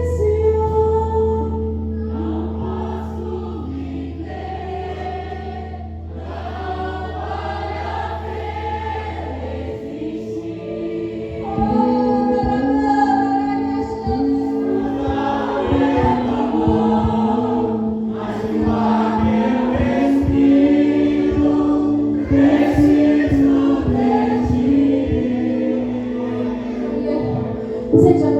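Gospel worship song sung by a group of voices with instrumental accompaniment. A low sustained bass note drops out about ten seconds in, and the music grows louder from about twelve seconds in.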